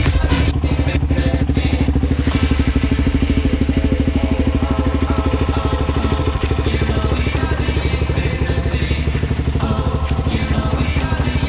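Suzuki LT-Z400 quad's single-cylinder four-stroke engine running steadily with a fast, even pulse.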